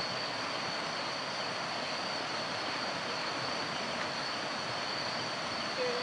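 Steady tropical forest ambience: a continuous high-pitched insect drone over an even hiss.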